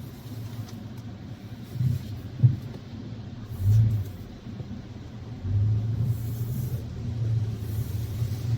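Car driving, heard from inside the cabin: a steady low engine and road rumble with a few short low thumps in the first half, growing louder and steadier about two-thirds of the way in.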